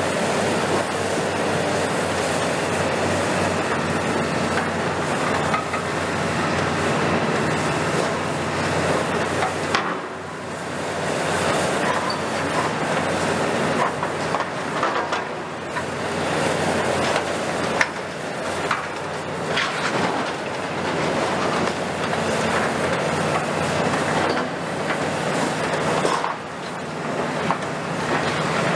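Long-front demolition excavator, a Kiesel KMC 400 built on a Hitachi ZX350LCD-6, running its diesel engine and hydraulics under load as its attachment works into a steel hall frame, with metal scraping and grinding and several sharp clanks of steel on steel.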